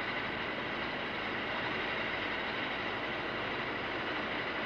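Steady machine-shop noise from a grinding machine working a crankshaft forging, an even, unbroken rushing with a faint higher ring.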